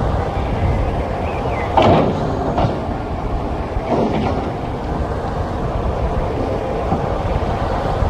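Class 50 steam locomotive standing at its train: a steady low rumble with a few short, louder bursts about two and four seconds in.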